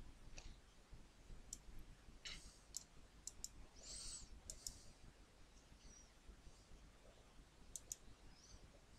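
Computer mouse clicks: a few faint, sharp clicks scattered over quiet room tone, some coming in quick pairs.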